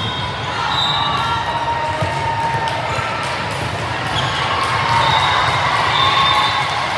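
A ball bouncing on a gym floor during a match, over a steady murmur of crowd voices in a large hall.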